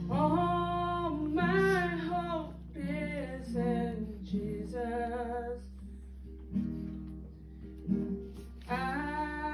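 A woman singing a worship song with long held notes, accompanying herself on acoustic guitar chords. The voice drops out for a couple of seconds past the middle, leaving the guitar alone, then comes back near the end.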